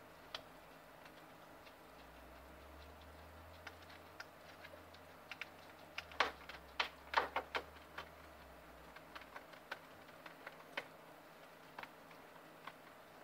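Guinea pig eating from a food bowl: scattered sharp clicks and crunches of chewing, with a quick run of louder ones about six to seven and a half seconds in.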